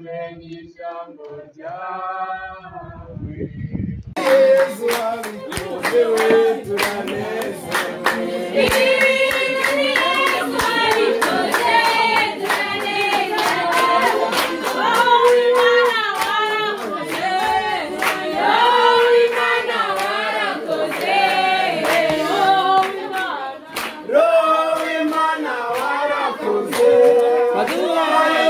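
A group of women singing together with steady rhythmic hand clapping, starting suddenly about four seconds in after a few seconds of a single voice.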